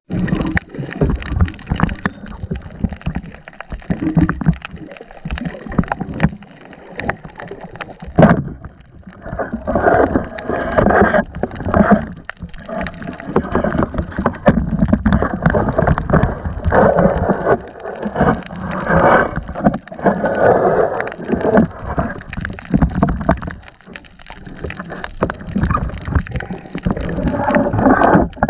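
Muffled water sloshing and gurgling picked up by an underwater camera as it moves through the water, rising and falling in uneven surges.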